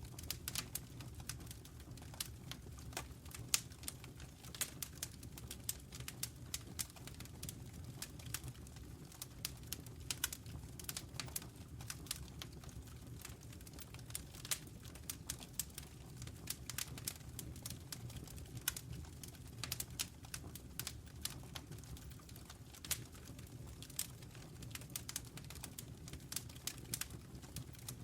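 Wood fire burning in a fireplace, crackling with irregular snaps and pops over a low steady rumble of the flames.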